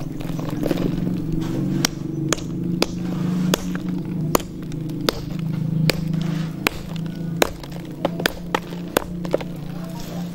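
Hand hammer pounding a lump of gold-bearing rock on a boulder anvil to crush it: repeated sharp strikes, irregular, about one or two a second, over a steady low hum.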